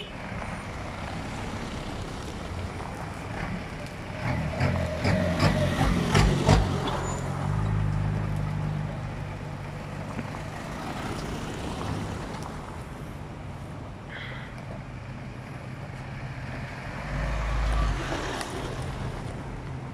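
Off-road 4x4s, among them a Mitsubishi Pajero and a Toyota Hilux pickup, driving slowly past one after another on a gravel track, their engines running low and steady. From about four to seven seconds in, a loud spell of crackling and crunching under the tyres, with a second swell of engine noise near the end.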